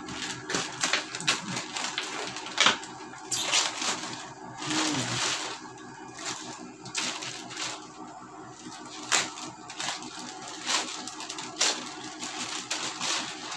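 Plastic packaging crinkling and rustling as a courier plastic mailer is torn open and a plastic-wrapped item inside is handled, with irregular crackles and scrapes throughout.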